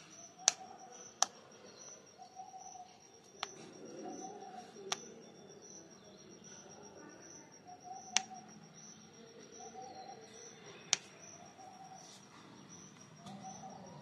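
Sharp single clicks from an Alexandrine parakeet's beak, about seven, spaced unevenly, as it works at seed and corn kernels. Behind them runs a steady, high, pulsing chirr.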